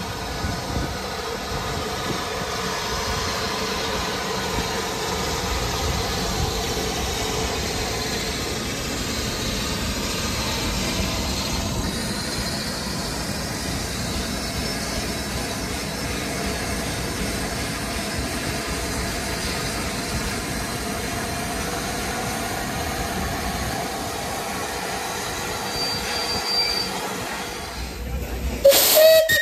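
Steam locomotive 35028 Clan Line, a Bulleid Merchant Navy class Pacific, moving through the station with its Pullman train: a steady rumble of wheels and running gear. A brief high squeal comes near the end, then a loud sudden burst just before the sound cuts off.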